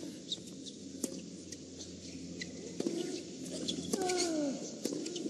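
Tennis rally: sharp racket-on-ball strikes about every second and a half. About four seconds in, a strike comes with a player's grunt that slides down in pitch, and a shorter one follows the strike near three seconds.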